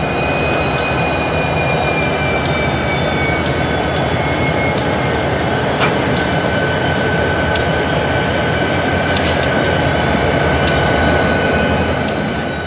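Freight train's diesel locomotives passing close by: a loud, steady rumble of engines and rolling wheels, with a thin, drawn-out high squeal from the wheels and scattered metallic clicks.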